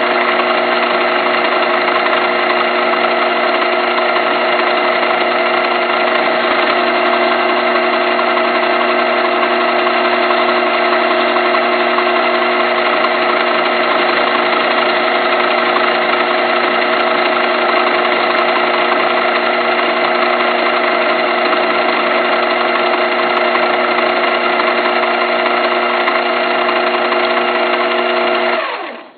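Small metal lathe running steadily, a loud even hum of motor and gearing with several fixed tones. Near the end it is switched off and the sound dies away within about half a second.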